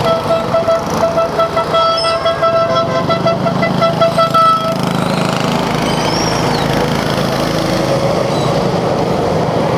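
A vehicle horn toots in a rapid on-off series on one steady pitch for about four and a half seconds, then stops. A small engine runs under it, and its rumble continues after the horn stops as a mini monster truck drives past.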